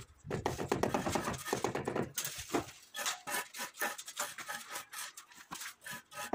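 A run of short, irregular knocks and taps as ceramic floor tiles are set into wet adhesive with a white rubber mallet and by hand, starting about two seconds in. Before that, for the first two seconds, a voice.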